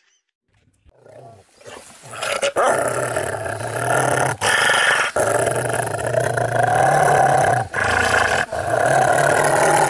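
Loud, low, angry dog-like growling, starting about two seconds in and running in long stretches of one to three seconds broken by brief gaps.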